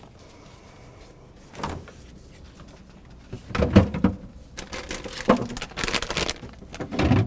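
A refrigerator door is opened, then items inside are handled: a series of knocks and rattles of jars and containers on the shelves. The loudest clatter comes about halfway through.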